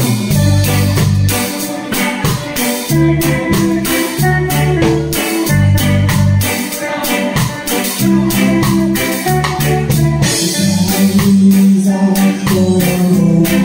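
Live band playing: stage keyboard, electric bass guitar and drum kit, with cymbal and drum strokes keeping time over a moving bass line.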